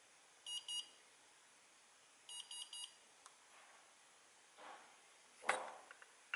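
Electronic beeps from AOMWAY Commander FPV goggles during their channel auto-scan: two short high beeps, then three more about two seconds later. A faint click, some handling rustle and a single knock follow, the knock being the loudest sound.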